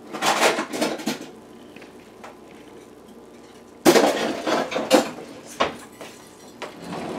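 Metal utensil clinking and scraping against a glass mixing bowl as a liquid egg-and-milk mixture is whisked by hand. About a second of stirring, a pause, then a sudden louder spell of stirring from about four seconds in that eases off toward the end.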